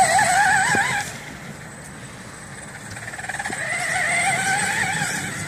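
Traxxas Slash RC truck's electric motor and drivetrain whining under throttle, the pitch wavering. It backs off about a second in and picks up again past the middle.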